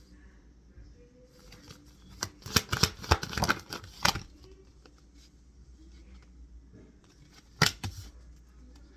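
Tarot cards being handled: a quick flurry of sharp card snaps and rustles about two and a half seconds in lasting a second or two, then a single snap near the end, as cards are shuffled and drawn.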